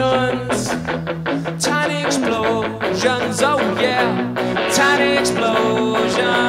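Live rock song from a guitar band: guitar and drums keeping a steady beat, with a male voice singing.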